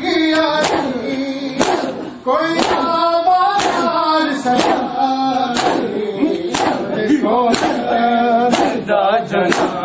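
A noha, a Punjabi lament, chanted by men's voices, with mourners' open-handed chest-beating (matam) striking in a steady beat about once a second.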